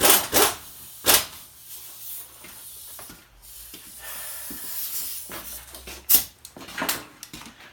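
Several sharp knocks and clanks of tools and wheel hardware being handled during a truck tire change, with a soft hiss about four seconds in.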